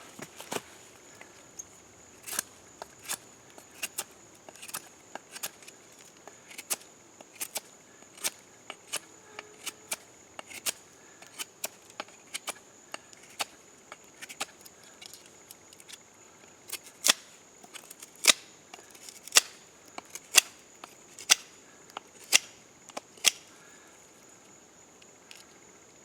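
Sharp, irregular clicks and snaps of a knife cutting into a piece of trumpet vine, growing louder and coming about once a second for several seconds late on. A steady high insect trill runs underneath.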